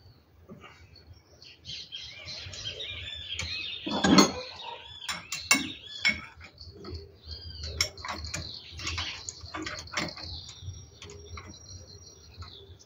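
Swallows twittering in quick chirps, over scattered clinks of metal tools and parts, with one louder metallic clank about four seconds in.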